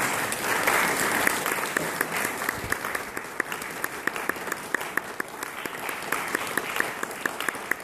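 Small audience applauding, loudest at the start and thinning out, with a few separate close claps standing out in the second half.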